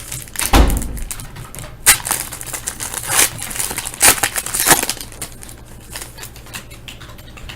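Hockey card pack's wrapper being torn open and crinkled while the cards are handled: a series of separate crackling rips and rustles, with a dull thump about half a second in.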